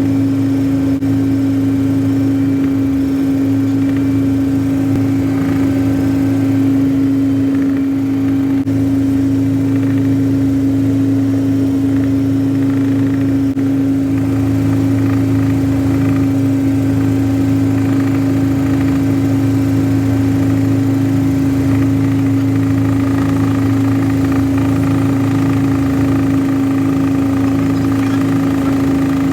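Helicopter running steadily in flight: a loud, unchanging drone with a strong steady hum.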